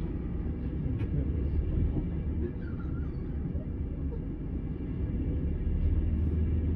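Setra S 431 DT double-decker coach's diesel engine idling with a steady low rumble, with a single short click about a second in.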